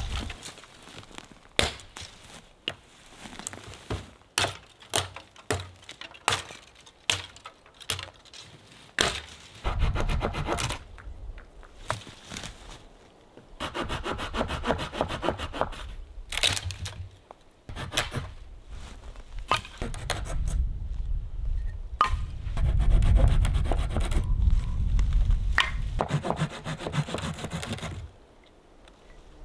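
Small handsaw cutting through a dry, dead branch in long spells of quick back-and-forth strokes. Before the sawing starts there is a run of short, sharp snaps and knocks of dry wood.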